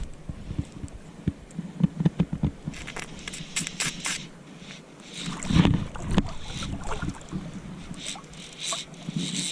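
Water splashing and sloshing in irregular bursts with sharp clicks between, heaviest about two seconds in and again about five and a half seconds in.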